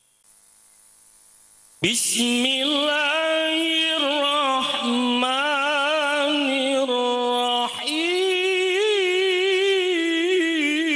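Man's voice chanting Quranic recitation (tilawah) through a handheld microphone: long drawn-out melodic notes with wavering ornaments. It starts about two seconds in after a quiet pause, breaks briefly for a breath about two-thirds through, and goes on.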